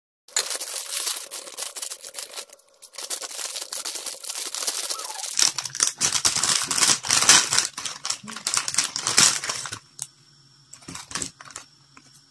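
Plastic food packaging crinkling and tearing, a dense run of rustles and clicks that grows louder about five and a half seconds in and dies down to a few faint clicks near the end.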